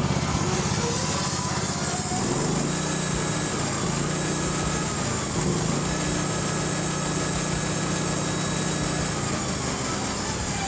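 A small engine running steadily, its pitch shifting a couple of times.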